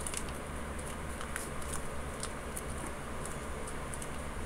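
A rolled paper tube being squeezed flat between the hands, making faint, irregular crinkles and crackles over a steady low hum.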